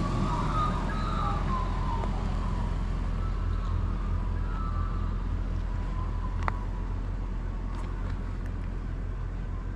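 Car engine idling with a steady low rumble while the frosted car defrosts, with some faint wavering tones in the first couple of seconds and a single click about six and a half seconds in.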